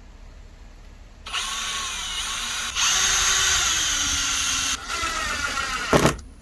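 Power drill running in two bursts. The first starts about a second in, gets louder partway through and runs about three and a half seconds, its pitch sinking as it slows under load. The second is shorter and ends just before the close.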